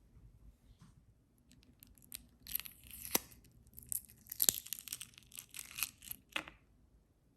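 Rustling and tearing of packaging or paper, with several sharp clicks, lasting about four seconds before it stops.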